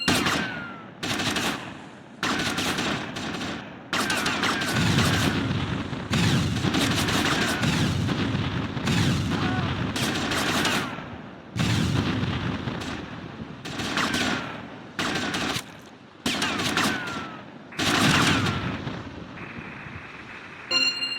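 Repeated bursts of rapid gunfire, about a dozen, each starting and stopping abruptly, with short falling whistles in several of them.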